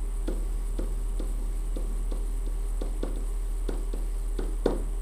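Marker writing on a whiteboard: a run of short, irregular squeaks and taps, several a second, the loudest near the end, over a steady hum.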